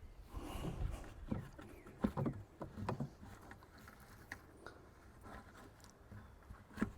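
Scattered light knocks and clicks of a plastic bucket and small fittings being handled while a fitting is screwed into the bucket wall, busiest in the first few seconds, with a sharper knock near the end.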